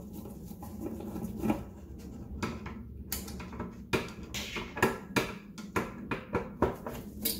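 Screwdriver on the screws of a Honda P06 ECU's steel case, with gloved hands handling the case: a run of small metallic clicks and knocks, a few a second, from about two seconds in, over a steady low hum.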